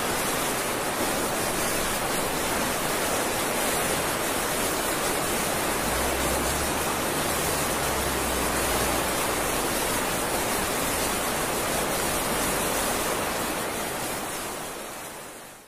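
Heavy floodwater rushing, mixed with rain: a steady, even hiss. A low rumble comes in for a few seconds in the middle, and the sound fades out at the end.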